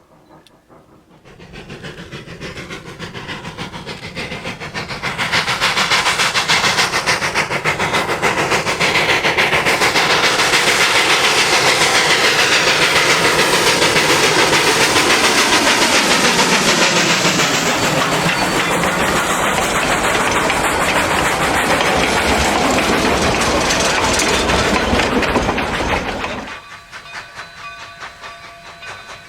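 Narrow-gauge 2-8-0 steam locomotive D&RGW 315 working past with a freight train: steam exhaust and hiss with wheels clacking over rail joints. It builds as the train approaches, stays loud while it passes close, then cuts off suddenly near the end.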